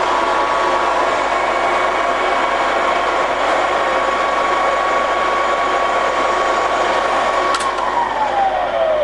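Z35 radial arm drill's spindle motor and gearbox running steadily in the high range at 265 RPM, with a steady whine. About three-quarters of the way through, a click comes as it is switched off, and the whine falls in pitch as the spindle runs down.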